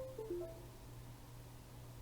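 A short electronic chime: a few quick notes in the first second, mostly stepping down in pitch, over a low steady hum.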